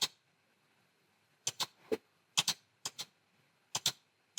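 Computer mouse clicking: a series of short sharp clicks, mostly in quick pairs like double-clicks, about every half second from about a second and a half in.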